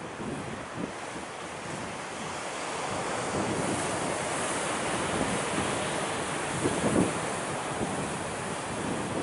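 Surf breaking on a rocky boulder shore, a steady wash that swells through the middle. Wind buffets the microphone in brief low gusts.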